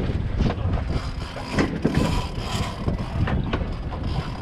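Fishing reel under load on a hooked tuna, clicking and ratcheting irregularly, over the low steady rumble of the boat's engines idling in neutral.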